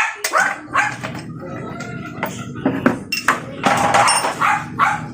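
A dog barking several times in short, separate barks.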